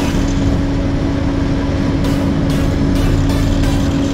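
Heavy diesel machinery running steadily: the dump truck and the asphalt paver pushing it. The sound is a constant loud drone with a strong steady hum over a rumble.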